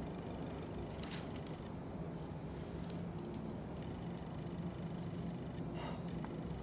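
Low steady mechanical hum with a few light clicks and ticks, the sharpest about a second in, and a short hiss near the end.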